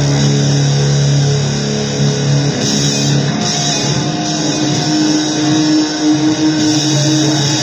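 Loud, noisy rock music built on distorted electric guitar: held notes drone over a dense wash of noise, with a higher note sustaining from about four seconds in.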